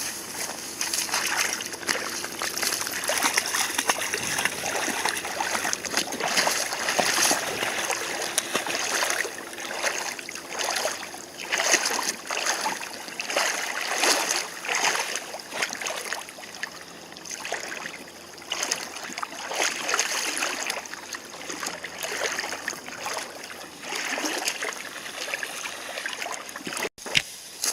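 Irregular splashing over the steady rush of a river running high and muddy after a typhoon.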